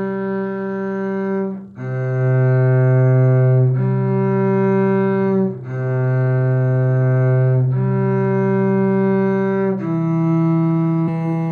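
Cello playing a slow C major round in long bowed notes, each held about two seconds, with two notes sounding together throughout.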